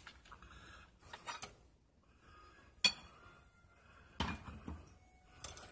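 Scattered hard clinks and knocks as parts are handled at a car's open fuel tank sender opening, with one sharp click about three seconds in and a short run of knocks a second later.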